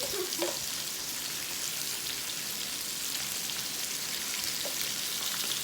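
Beef sizzling steadily on a hot grill, an even hiss with faint crackles.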